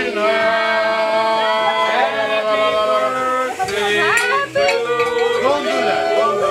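Several voices singing together in held, overlapping notes.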